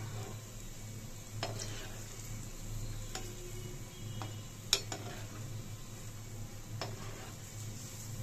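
Dal batter balls deep-frying in hot oil in a kadhai, a steady sizzle. A perforated metal skimmer stirring them clicks against the pan about four times, the loudest a little past halfway.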